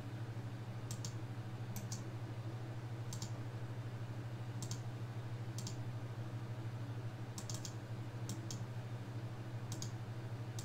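Sharp clicks of a computer mouse and keyboard, a dozen or so spread a second or two apart, several in quick pairs, as a list is copied and pasted into a spreadsheet. A steady low electrical hum runs underneath.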